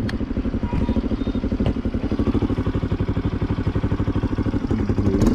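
Motorcycle engine running steadily while riding along, its exhaust giving a quick, even pulsing beat.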